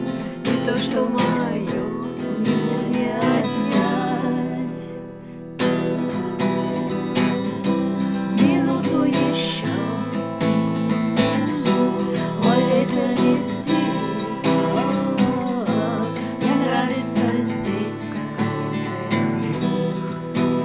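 Stagg acoustic guitar strummed in chords, with two women's voices singing a song along with it. The playing thins out briefly about four seconds in and comes back with a hard strum about a second and a half later.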